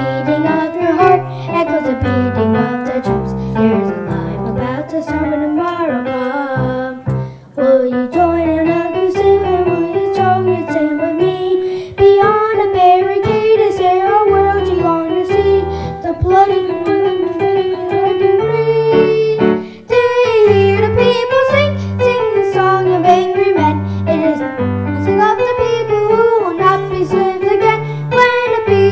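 Music: a voice singing a wavering melody over piano or keyboard accompaniment with a steady low beat. The sound briefly drops away twice, about a quarter of the way in and about two-thirds of the way in.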